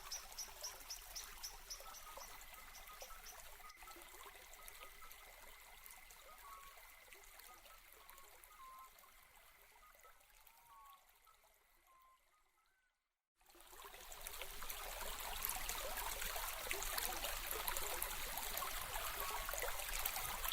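Trickling water with short high chirps and a fast run of high ticks. It fades out to silence a little past halfway, and then an even, running-water trickle fades back in.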